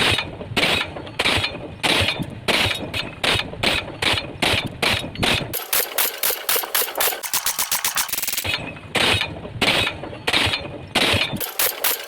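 Pile driver hammer striking a pile again and again, about three blows a second, speeding into a fast rattle of blows about halfway through, slowing again, then quickening once more near the end.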